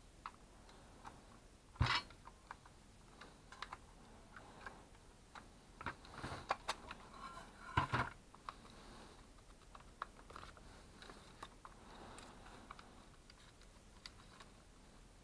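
Parts of a disassembled hand-held circular saw handled on a wooden workbench: scattered light clicks and knocks of the plastic motor housing and metal pieces, with louder knocks about two seconds in and about eight seconds in.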